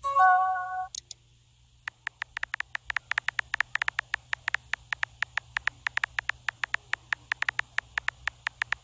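Simulated phone-keyboard typing clicks from a texting-story chat app, rapid ticks about six a second. Near the start a short chime of several steady tones sounds, then the typing stops for about a second before it resumes.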